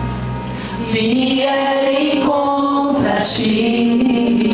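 Women singing a Portuguese gospel worship song, with long held notes.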